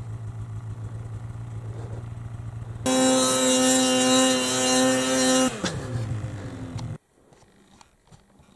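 Polaris PRO RMK two-stroke snowmobile engine idling with a steady pulse, then revved hard about three seconds in and held high for a couple of seconds as the stuck sled is rocked to dig it out of deep snow. The revs then fall away with a dropping pitch, and the sound cuts off suddenly about seven seconds in.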